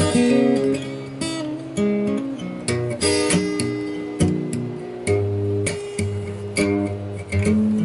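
A cheap guitar, one costing about 3000 rubles, played on its own: several strummed chords left to ring between strokes, with some single notes in between.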